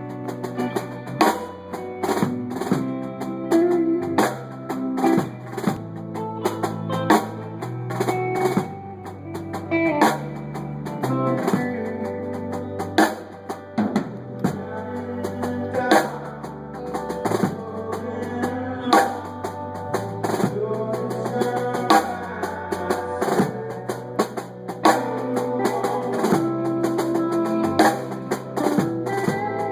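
Music with a drum kit, bass and guitar playing steadily, sounding muffled with little treble.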